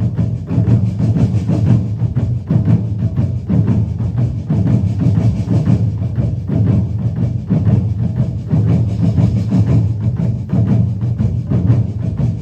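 Music driven by drums and percussion, with dense, rapid strikes over a heavy low end.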